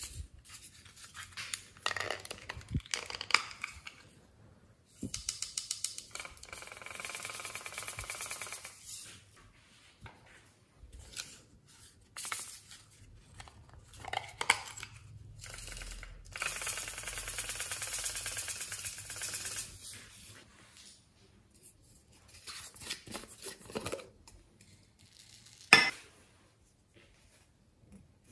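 Hard plastic toy containers being handled and twisted open, with clicks and knocks of plastic, and two long stretches of fine pattering hiss as glitter and small beads pour out into a glass dish. One loud sharp plastic click near the end.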